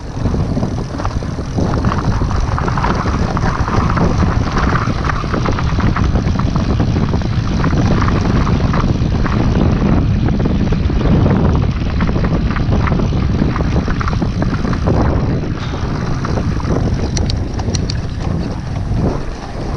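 Wind buffeting the microphone of a mountain bike in motion, mixed with the rumble and rattle of the bike's tyres and frame on an off-road trail. A few short high clicks near the end.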